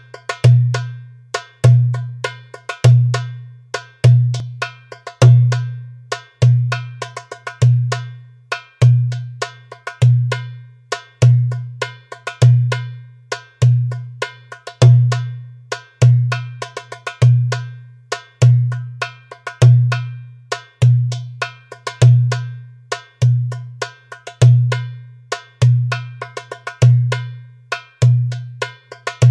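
Toumbeleki (Greek goblet drum) playing a steady tsifteteli rhythm at 100 bpm. A deep stroke comes on about every second beat, and quicker sharp, ringing strokes fall between the deep ones.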